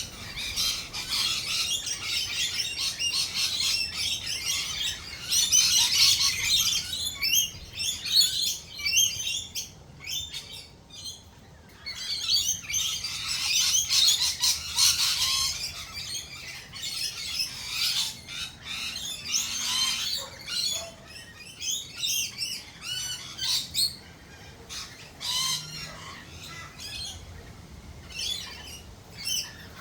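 Australian native birds chattering and squawking in a dense tangle of rapid high calls. The calls swell several times into loud stretches, then thin out to scattered calls near the end.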